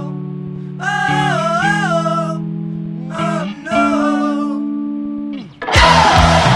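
Rock music soundtrack: held electric guitar notes under a wailing sung voice, then about five and a half seconds in the full band comes in loud and distorted.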